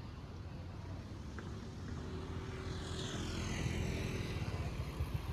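Low engine rumble of passing traffic that grows louder about two seconds in, with a faint falling whine as something goes by.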